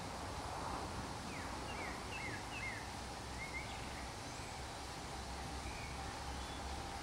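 Outdoor ambience of steady background noise, with a small songbird giving a quick run of short chirps between about one and three seconds in.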